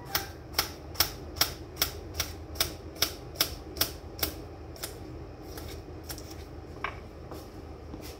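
Kitchen knife chopping bell pepper on a cutting board: steady knocks of the blade on the board, about two or three a second, growing fainter and sparser about halfway through.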